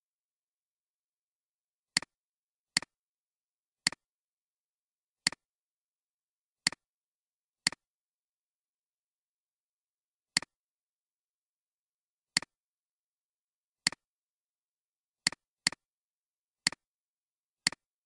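Computer mouse button clicks, thirteen in all at irregular intervals, each a sharp press followed at once by a softer release.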